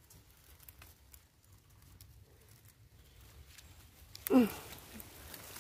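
Dry fallen leaves rustling faintly with scattered small crackles as someone moves through the leaf litter, and one short voiced sound from a person, falling in pitch, about four seconds in.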